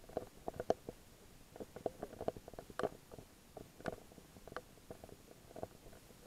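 Muffled underwater sound heard through a camera's waterproof housing: faint, irregular soft clicks and gurgles, with a few sharper ticks near the middle.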